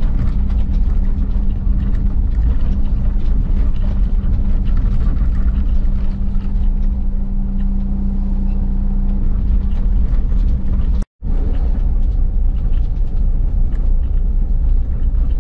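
A motorhome's engine and tyres rumbling steadily, heard from inside the cab as it drives slowly over paving-stone streets. A low engine hum fades after about nine seconds, and the sound cuts out for a split second about eleven seconds in.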